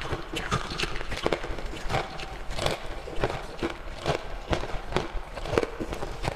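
Green-coloured crushed ice crunching as it is bitten and chewed: a steady run of sharp crunches, about three a second.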